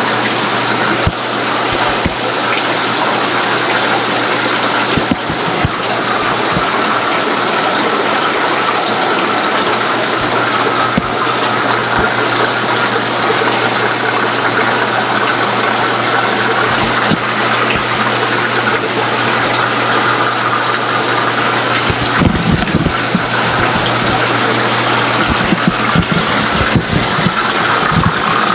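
Steady rush of circulating water with a low, even pump hum from the filtration and plumbing of a row of marine aquarium tanks. A few faint low knocks come near the end.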